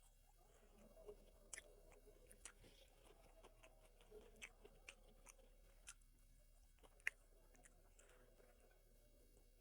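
Faint chewing of food close to the microphone: irregular small clicks and crunches.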